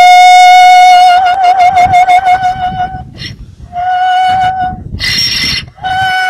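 Donkey braying in a high, pure, operatic-sounding note. One long held note of about three seconds wavers in pitch, followed by a short squeak and a second, shorter held note. Near the end a harsh, rasping breath gives way to a third held note.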